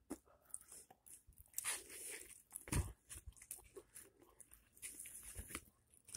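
A person chewing and crunching food close to the microphone: irregular faint bite and mouth noises with a few louder crunches.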